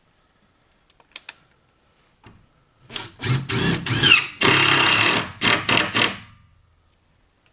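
Cordless drill driving screws into wood in several short bursts, starting about three seconds in and lasting about three seconds, the motor pitch gliding up and down between bursts.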